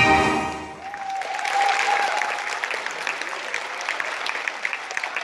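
Accordion music ending on a held chord that cuts off under a second in, followed by the audience applauding.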